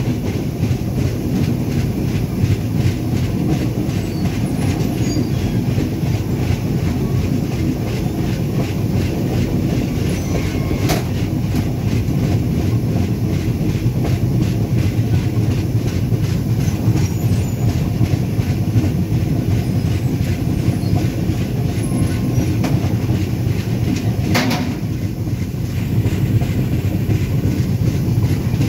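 Train running along the track, heard from on board: a steady rumble of wheels on rail with a rhythmic clickety-clack, and two brief sharp clicks, one partway through and one near the end.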